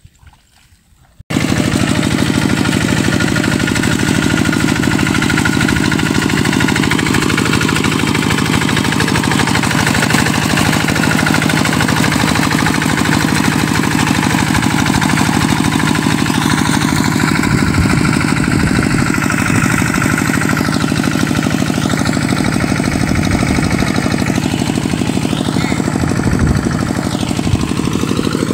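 Two-wheel walking tractor's single-cylinder diesel engine running steadily as its steel cage wheels churn through a flooded, muddy rice paddy. The engine cuts in abruptly about a second in.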